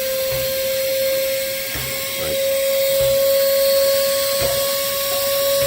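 Moore jig grinder's high-speed grinding spindle running, a steady high whine with a hiss over it, creeping slowly up in pitch.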